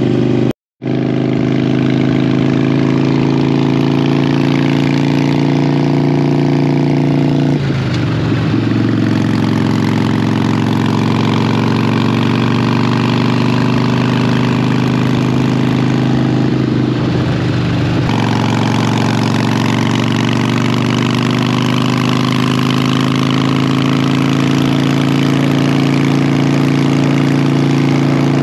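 Motorcycle engine running steadily on the road, with a rushing hiss over it. About eight seconds in, the engine note wavers and shifts for some ten seconds, then settles back to a steady pitch. The sound cuts out briefly just under a second in.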